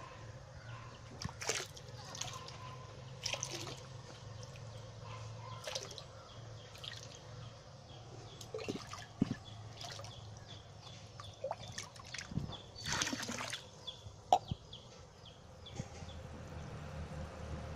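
Water splashing and dripping as hatched brine shrimp are poured from a glass into a koi fry pond, in a series of short splashes over a low steady hum.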